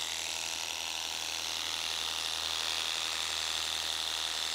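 Worx Hydroshot Nitro cordless pressure washer running steadily on its 56-bar high-pressure setting: the pump motor hums under the hiss of the water jet as it rinses snow foam off a car's paintwork.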